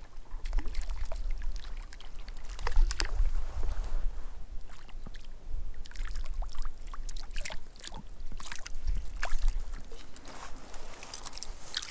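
Water splashing in quick, irregular splashes at the surface, typical of a hooked Arctic grayling thrashing and fighting on the line.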